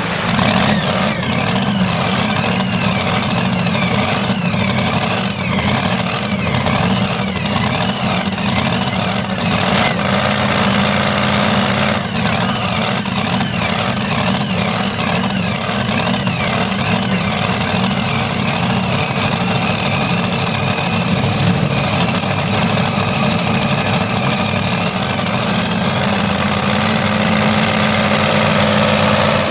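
Modified pulling tractor's four naturally aspirated Ford engines dropping off full throttle at the very start, then idling steadily: the pull is over and the engines are backed down to idle.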